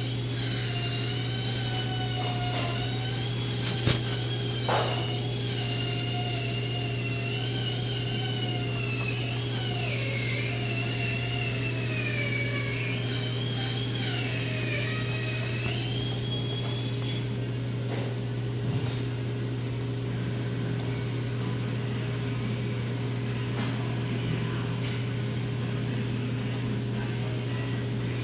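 Motor of a new Urbano unit running with a steady low hum and a high whine that wavers up and down in pitch, the whine fading out about two-thirds of the way through; the owner calls it a bad motor.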